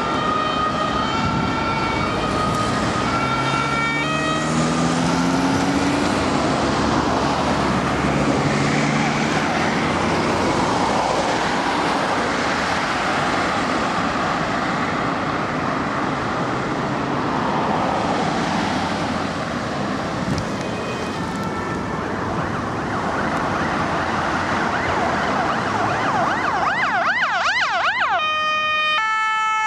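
Emergency vehicle sirens in busy road traffic. A two-tone siren steps between two pitches at the start. For most of the stretch, engines and tyres of passing vehicles cover the siren, with an engine rising in pitch as it pulls away. Near the end, a fast warbling siren switches to a loud two-tone siren as an ambulance comes by.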